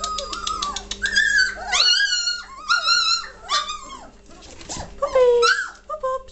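A litter of three-week-old German Shorthaired Pointer puppies whining and yelping: many short, high-pitched cries that rise and fall, overlapping one after another. A patter of quick clicks comes in the first second.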